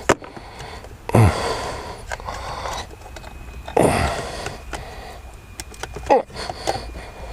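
Clicks and plastic handling noises of a car's HVAC control module being worked out of the dash and its connectors handled, with a sharp click at the start and a few short rustling bursts, mixed with a man's short breaths.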